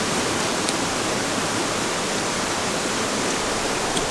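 Steady rushing of water from a rain-swollen creek and waterfall, an even, unbroken noise.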